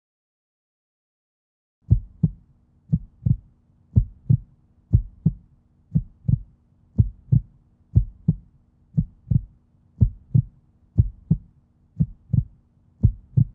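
Heartbeat sound effect starting about two seconds in: paired low thumps, lub-dub, about once a second, over a faint steady low hum.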